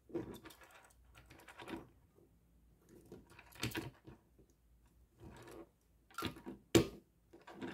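Die-cast toy cars being turned and rolled by hand on a tabletop: irregular scrapes, taps and clicks of wheels and bodies on the surface, with one sharp click near the end.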